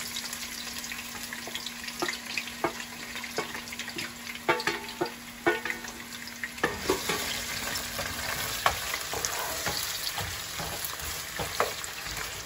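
Chopped onions sizzling as they fry in plenty of oil in a large pot, with scattered clicks and knocks of a utensil against the pot as they are stirred.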